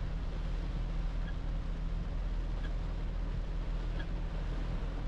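Cab of a 2010 Toyota Hilux pickup driving in heavy rain: a steady low engine and road hum under an even hiss of rain and tyres on the wet road, with a faint tick about every second and a half.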